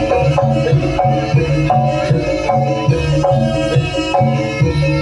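Live jaranan gamelan accompaniment: kendang hand drums with struck metal keyed instruments playing a steady, repeating rhythmic pattern.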